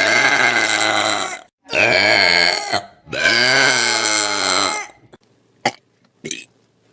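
A person belching three times in a row, each a long, loud, pitched burp of one to one and a half seconds with a wavering pitch; the first is already under way at the start. Two short sharp sounds follow near the end.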